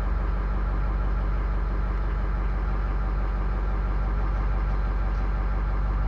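Ford F-250 pickup's engine idling steadily.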